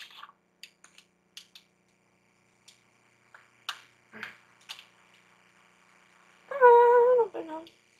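Light clicks and taps of an eyeshadow palette's packaging being handled and opened. About six and a half seconds in there is a loud, held, pitched vocal sound lasting about a second, the loudest sound here.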